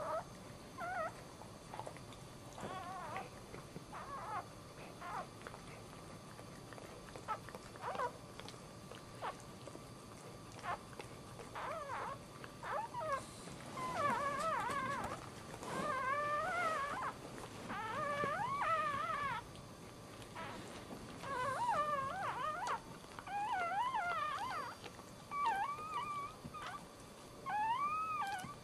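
Newborn dachshund puppy crying in high, wavering squeaks while its mother licks it. The cries are sparse at first and come in longer bouts from about halfway on, with soft wet licking clicks in between.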